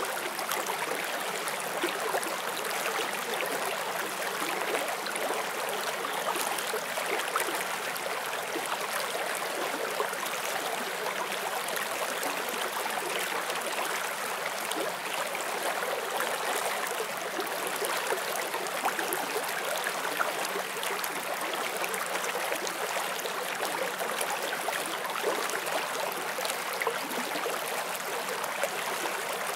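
Forest stream flowing over rocks: a steady rush of water with small splashes and gurgles running through it.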